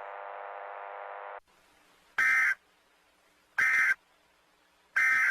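A faint steady tone cuts off about a second and a half in. Then come three short, loud, identical data bursts of Emergency Alert System SAME tones, about a second apart: the end-of-message code that closes an EAS alert.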